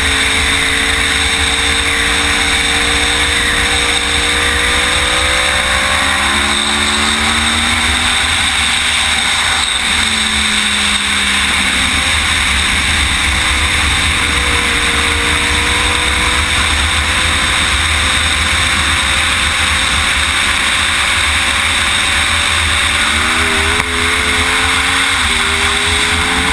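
Sportbike engine at speed on a track, mostly buried under heavy steady wind rush on the onboard camera's microphone; its pitch rises and falls through the corners and climbs again in steps near the end.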